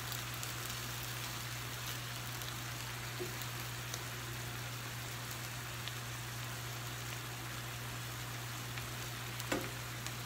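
Diced chicken frying uncovered in a nonstick skillet, a steady sizzle as its juices cook off, with the pieces stirred by a spatula. One sharper knock near the end.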